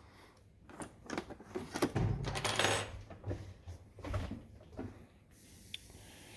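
Small metal lock parts and tools handled: a quick run of clicks, taps and rattles, busiest about two to three seconds in, then a few scattered clicks.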